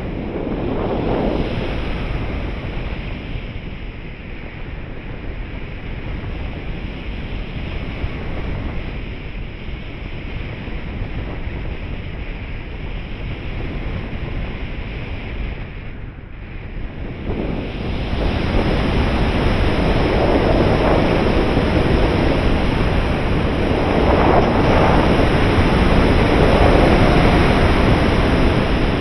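Wind rushing over the microphone of a camera mounted on a 3.6 m RC glider's wing in flight: a steady noisy rush of airflow that dips briefly a little past halfway, then comes back louder for the rest.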